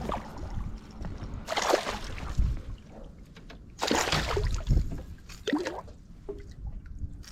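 Water splashing and sloshing at a fishing boat in several short bursts, over a low rumble.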